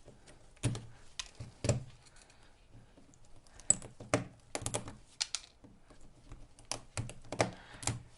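Irregular sharp clicks and light knocks, about fifteen spread over several seconds and sometimes coming in quick clusters, from hard parts being handled on a workbench.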